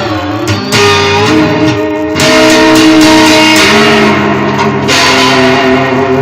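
Music: held, pitched notes stepping from one to the next every second or so, a little quieter for the first two seconds.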